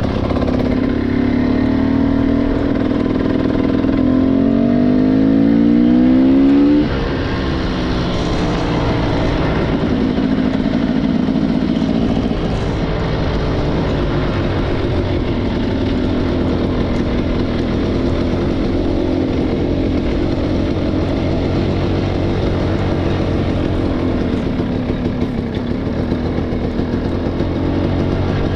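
Motorcycle engine running under way. Its note rises for a few seconds, drops abruptly about seven seconds in, then runs on at a fairly steady pitch.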